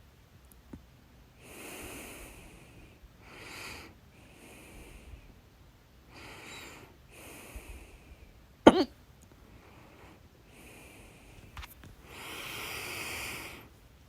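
A person breathing audibly in and out, about seven breaths, with one sudden, loud hiccup a little past the middle.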